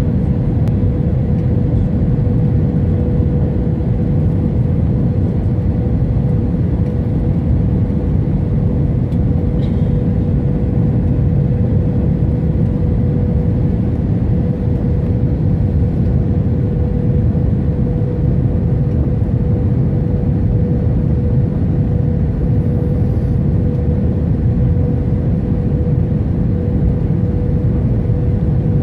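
Cabin noise inside an Airbus A320-family airliner on final approach with flaps extended: a steady low rumble of the jet engines and rushing air, with one constant mid-pitched tone running through it.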